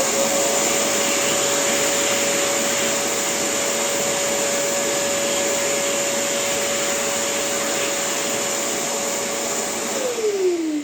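Shop vacuum motor running with a steady whine over a rushing hiss, then switched off near the end, its whine falling in pitch as it winds down.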